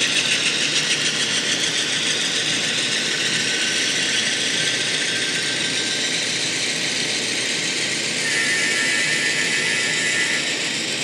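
An N-scale model train running past on the layout: a steady whir and rattle of the wheels and motor on the track, with a thin whine that slowly shifts in pitch. A steady higher tone joins about eight seconds in.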